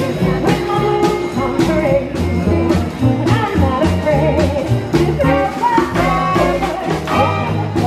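Upbeat music with a singer over a bass line and a steady drum beat.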